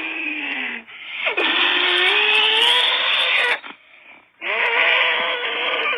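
Loud, harsh, distorted scare sound with a wavering, sliding pitch, like a scream or animal cry. It cuts out for under a second just after the halfway point, then starts again.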